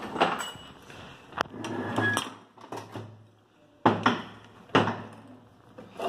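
A metal hand tool clinking and scraping against a ball bearing in a VW MQ200 gearbox bearing plate as the bearing is worked apart. There are several sharp metallic knocks, the loudest about four and five seconds in.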